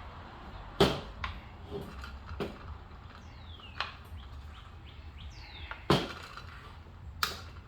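Locking latches on the ReCover P-IX AR platform being worked open by hand: a run of sharp snapping clicks. The loudest come about a second in, near six seconds and again near seven seconds, with lighter clicks between.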